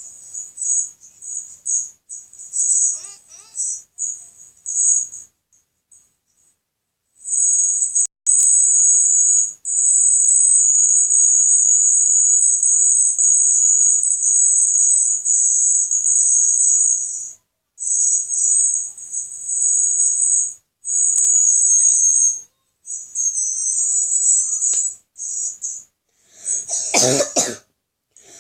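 Insects trilling in one narrow, high-pitched band. The trill pulses at first, holds steady for about ten seconds, then breaks into shorter bursts. Near the end comes a single loud cough.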